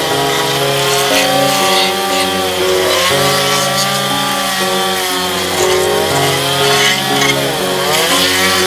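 Stihl gas chainsaw with a carving bar cutting texture into soft Western Red Cedar, its engine pitch repeatedly dipping and rising as the chain bites and is throttled, sharpest dip near the end.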